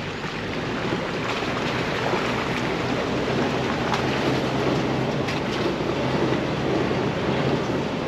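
Jeep Wrangler TJ crawling over a rocky off-road trail: the engine runs with a steady low hum under the crunch and rattle of tyres on rock and gravel, with a few small knocks.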